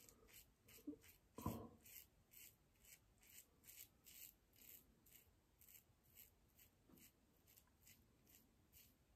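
Faint scraping of a safety razor cutting lathered stubble on the neck in short, quick strokes, about two a second. A soft thump about a second and a half in.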